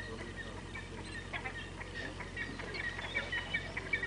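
A flock of birds calling, many short high calls repeating rapidly and overlapping, with scattered clicks.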